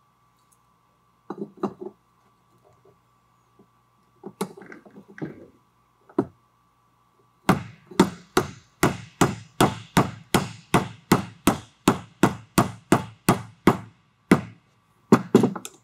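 Rubber mallet tapping a piston and its rings through a ring compressor into an AeroVee engine cylinder. After a few scattered knocks, it strikes in a steady run of about three blows a second for several seconds, then twice more near the end.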